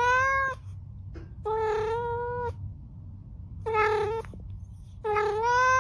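Cat meowing repeatedly: four drawn-out meows, the third one shorter, some rising slightly in pitch, over a low steady rumble.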